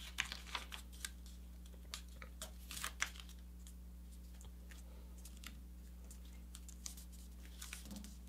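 A sheet of paper being folded and creased by hand: soft rustles and crinkles in the first three seconds or so, then mostly quiet over a steady low hum, with a few faint taps near the end.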